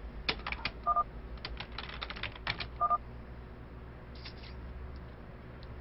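Quick clicks of keyboard typing and mouse clicking, with two short two-note beeps about two seconds apart, about a second in and near three seconds: the game's chat-message alert as lines from the opponent arrive.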